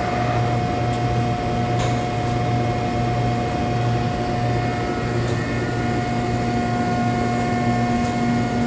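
Cincinnati press brake running under power: a steady machine hum with a constant tone, and a few faint clicks.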